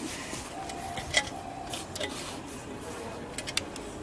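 A motorcycle bash plate being held up and shifted into line against a Suzuki DR650's underside: scattered light clicks and taps, the sharpest about a second in.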